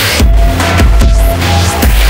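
Industrial electronic music in the EBM and dark wave style: a heavy bass synth pulsing in an even beat under sharp drum hits, with a held synth note through the middle.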